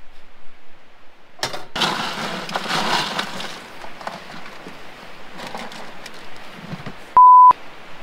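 Metal clattering for a couple of seconds as a frying pan is set down on a camp stove, with a few sharp clicks and lighter knocks after. Near the end comes a short, loud, steady censor beep.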